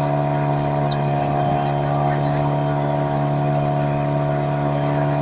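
Motorboat engine running at a steady speed with a constant drone. A few short, high chirps come through about half a second to a second in.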